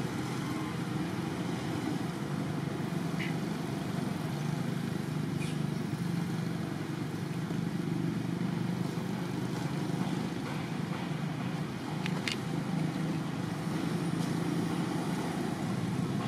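Steady low background rumble, with a few brief high-pitched chirps about three, five and twelve seconds in.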